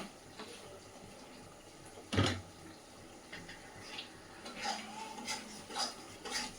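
A utensil knocking and scraping in a cooking pot as spices are stirred in, with one loud clunk about two seconds in and several lighter clinks near the end.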